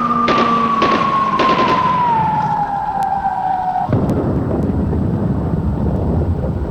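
Sound effects from a radio-controlled P-47 model's onboard sound system: short machine-gun bursts over a long falling whistle of a diving, hit aircraft, then a sudden rumbling crash-like explosion about four seconds in.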